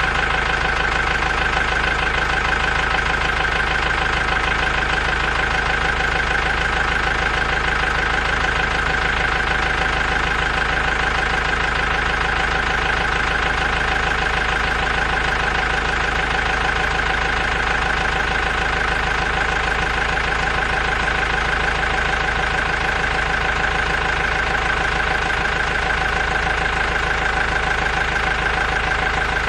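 Engine idling steadily, with a fine, even pulsing and no change in speed or level.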